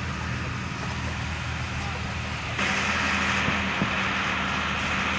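Hino truck's diesel engine running steadily, heard from inside the cab; about two and a half seconds in it gets louder and a steady hiss joins in.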